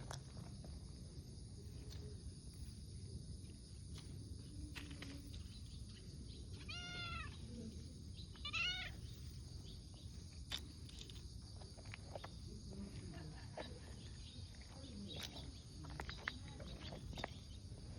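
A cat meowing twice, two short calls that rise and fall in pitch about a second and a half apart, past the middle.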